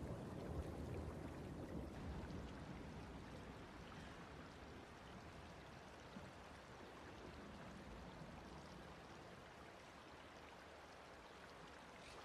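Faint, steady background noise with most of its weight low down, easing off slowly; no distinct events.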